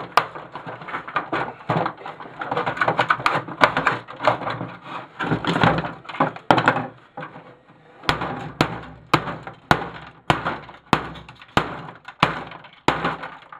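Plastic printer housing and parts being pried and pulled apart by hand: rattling and scraping with cracks and knocks, then about halfway through a steady series of sharp clicks a bit under a second apart.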